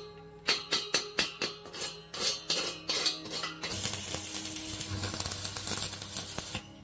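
Background music: a steady percussive beat over held notes, turning into a denser, fuller passage a little past halfway that cuts off just before the end.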